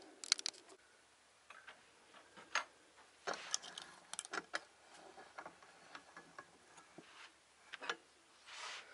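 Faint, irregular clicks and light knocks from handling a strip of aluminium angle at a steel bench vise, with a brief scrape near the end.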